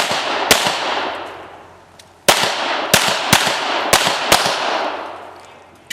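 Pistol shots fired in quick succession: two shots, a pause of nearly two seconds, then a string of five shots about half a second apart, each trailing off in a long echo.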